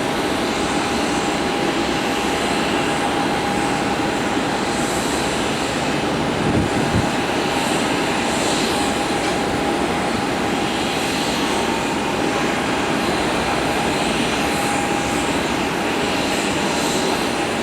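Airbus A380-800 jet engines at takeoff power: a steady, loud rushing noise with a high, even whine held through it. Two brief low thumps come about six and a half to seven seconds in.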